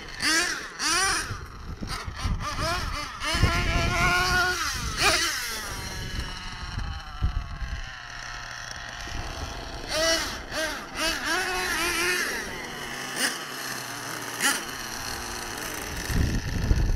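Nitro RC monster truck engines, small high-revving glow-fuel motors, revving up and down in short bursts. The whine climbs in pitch, then falls away as a truck drives off, and more revving follows later.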